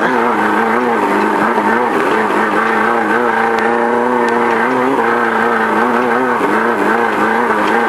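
A VW Beetle-based off-road race car's engine running hard, heard from inside the car. Its pitch rises and falls again and again as the throttle is worked over rough desert terrain, with a steadier stretch in the middle.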